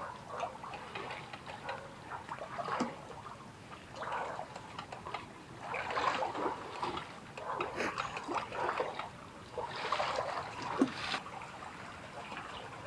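Several people wading through a shallow stream, the water splashing and sloshing around their legs in an uneven run of steps.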